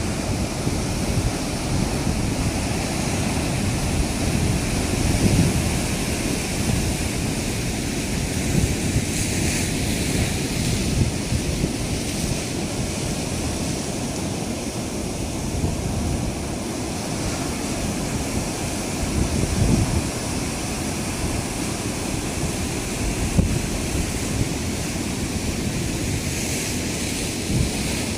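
Sea surf breaking and washing among a concrete tetrapod breakwater, a steady rushing noise, with wind buffeting the microphone in gusts.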